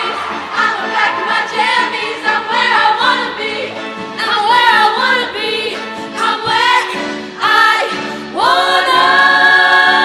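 A high school show choir singing in full harmony over its accompaniment in short phrases. Near the end the voices swoop up into a long held chord.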